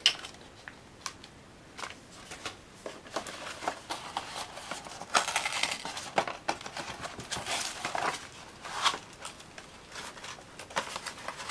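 Crinkling of the foil pouch around a printer ink cartridge as it is handled, with irregular rustles and taps of a small cardboard box.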